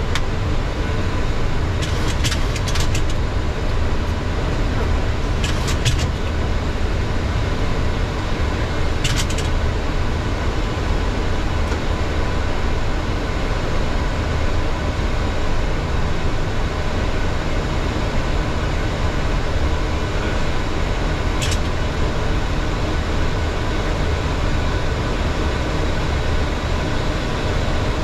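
Steady cockpit noise of a Boeing 737-800 in flight, a deep even rush of airflow and engines, with a few short clicks scattered through it.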